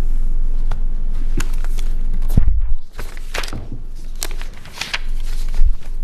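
Papers being shuffled and handled on a desk close to a microphone: a run of rustles and taps, with a heavy thump about two and a half seconds in, over a steady low hum.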